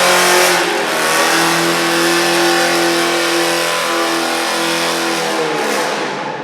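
Chevrolet Camaro SS V8 just started after an oil change, its pitch falling from the start-up flare and settling into a steady idle. The pitch lifts briefly near the end.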